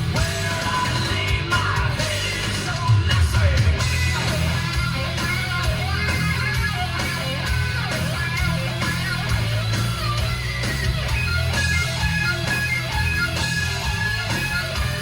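Rock music with electric guitar and shouted vocals playing through a car's factory stereo, heavy in the bass.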